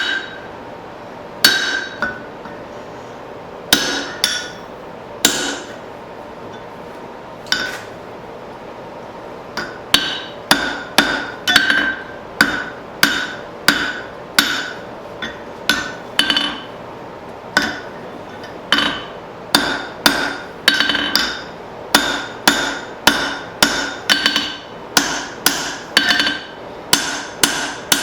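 Blacksmith's hand hammer striking a punch and hot steel on the anvil, each blow ringing, while punching the slug out of the eye of a forged hammer head. A few spaced blows come first, then a steady run of about two blows a second from about ten seconds in.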